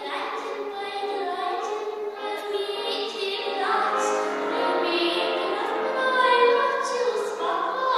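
A woman singing a song into a handheld microphone, her voice amplified through the hall's sound system.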